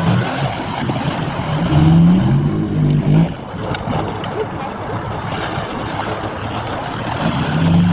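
Mitsubishi Pajero driving in tight turns on loose dirt. The engine note rises and falls in steps, loudest about two seconds in and again near the end, over a steady rush of noise from the tyres on the ground.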